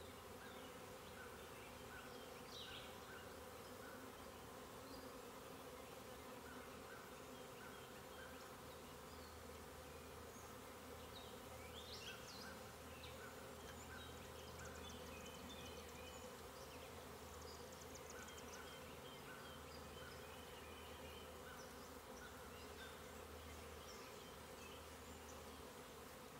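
Honeybees humming steadily around a hive as a newly caught swarm moves in from a swarm trap: a faint, even hum.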